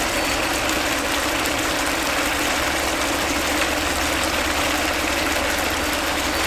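Steady noise of running water with a low, even hum under it.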